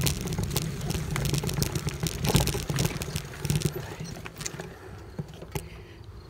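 Crunching on a gravel dirt path over a low rumble, made while travelling along the path. It dies down after about four seconds as the movement stops.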